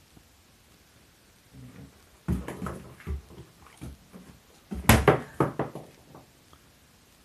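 Doberman-cross-Collie puppy playing on a wooden floor: paws and claws knocking and scrabbling on the boards in several short bursts, the loudest about five seconds in.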